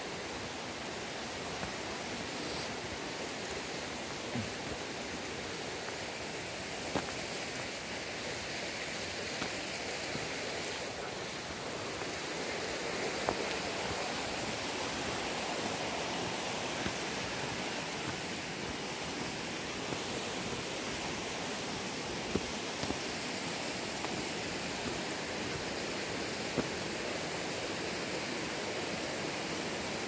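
Steady rushing of a mountain creek, an even wash of water noise with a few faint short ticks scattered through it.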